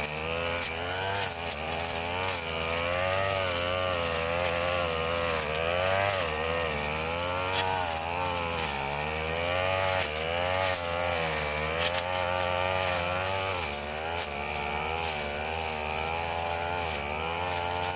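Two-stroke brush cutter engine running under load, its pitch rising and falling over and over as the blade cuts through grass, with a few sharp clicks.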